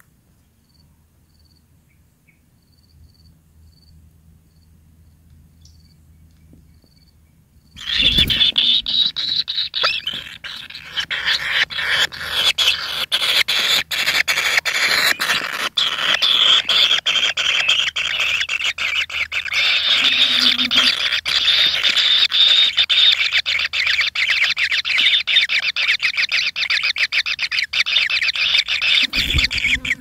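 Kingfisher nestlings begging for food: about eight seconds in, a sudden loud, continuous clamour of rapid, harsh, high calls starts up and keeps going as the chicks are fed. Before it there are only faint, regular insect chirps.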